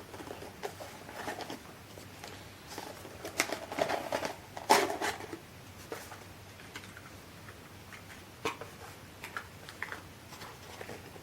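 Processor retail packaging being handled and opened: scattered plastic clicks and rustles, busiest in the middle, with one sharp crack just under five seconds in.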